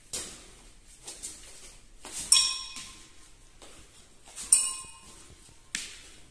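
Kettlebell clanking with a short metallic ring, twice, about two seconds apart, each at the end of a punching thrust with the weight. Sharp clicks come near the start and again near the end.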